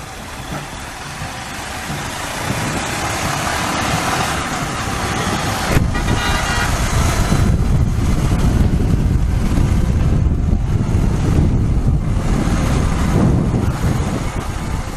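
Royal Enfield Himalayan's single-cylinder engine and road noise while riding in traffic, with wind buffeting the microphone that grows heavy from about six seconds in. A short horn toot sounds around the six-second mark.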